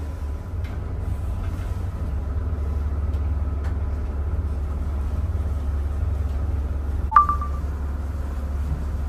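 Steady low rumble of a Fleming motor yacht's diesel engines running under way, heard from inside the pilothouse. About seven seconds in, one short sharp high beep cuts through.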